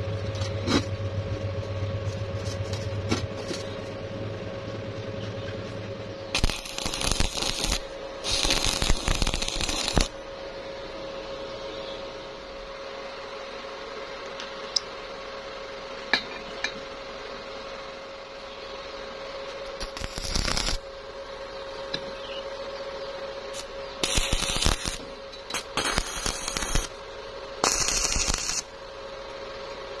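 Stick (arc) welder laying short tack welds on a steel door hinge and pipe: about six bursts of arc crackle, each about a second long, two about a quarter of the way in, one about two-thirds through and three in quick succession near the end, over a steady hum.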